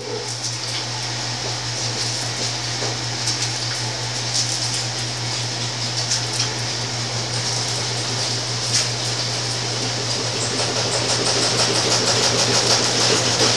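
Steady mechanical hum with an even hiss, like a fan or air-conditioning unit running, with scattered faint clicks.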